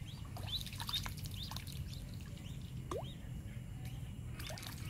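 Ducklings peeping: short, high, curved chirps, several a second, with one lower rising call about three seconds in, over a steady low hum.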